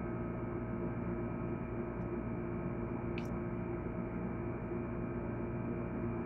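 Steady electrical hum made of several fixed tones at an even level, with one faint click about three seconds in.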